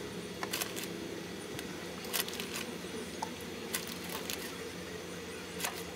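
Wooden skewers and a plastic zip-top bag of marinated meat being handled while threading kebabs: a scattering of short, sharp clicks and crinkles, about ten in all, over a steady low hum.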